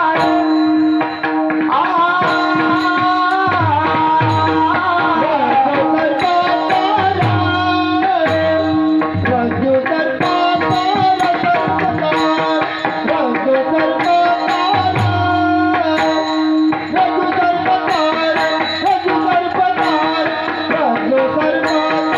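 Indian devotional music: a hand drum playing a rhythm under a steady held drone, with a melody line that bends and glides in pitch and regular high percussion strokes.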